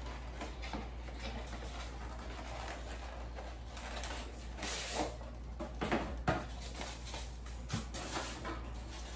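Small cardboard box being opened and handled as a boxed light bulb is unpacked: soft rustling and scraping of the cardboard, with a cluster of sharper clicks and scrapes about five to six seconds in, over a steady low hum.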